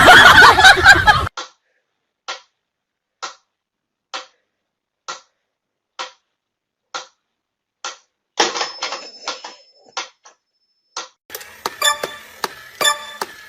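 A brief loud noisy stretch at the very start, then evenly spaced sharp ticks a little under one a second. Near the end the clicks come faster amid light clatter.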